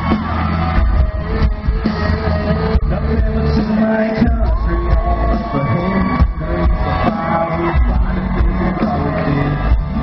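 Live country band playing loud through a concert sound system, with drums and a heavy bass line, singing, and crowd shouts mixed in.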